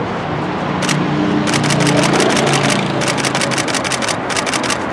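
A car's engine running as it passes on the street, loudest about two seconds in. Over it come three bursts of rapid clicks, about ten a second, starting about a second and a half in.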